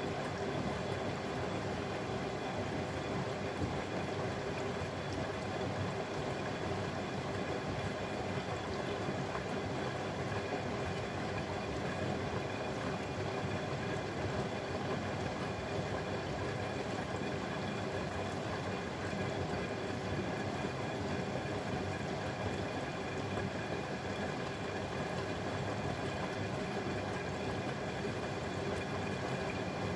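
Bosch Maxx WFL 248Y front-loading washing machine running mid-cycle: a steady rumble with water sounds, no change throughout.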